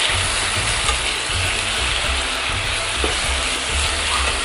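Raw ground pork sizzling steadily in hot oil with chopped onion and garlic in a nonstick pan, stirred and broken up with a slotted spatula.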